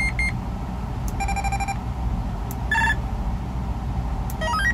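AnyTone AT-6666 CB radio playing its roger beep tones as the roger beep setting is stepped through: a short run of beeps at the start, a steady tone about a second in, a short tone near three seconds, and a quick rising run of beeps near the end.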